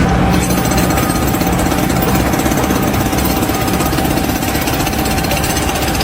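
A heavy construction machine hammering loudly with a rapid, steady, even rattle of strikes.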